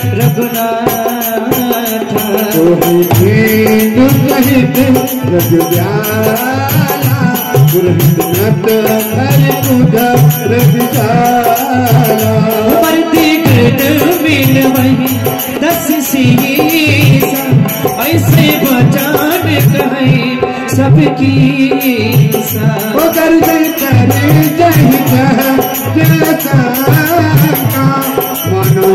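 Indian devotional bhajan music: a harmonium playing the melody over a steady dholak drum beat, with small hand cymbals jingling in time.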